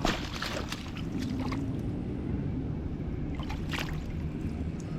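Steady low rumble of wind and water noise around a fishing boat, with a few sharp clicks and taps of handling near the start and one more about four seconds in.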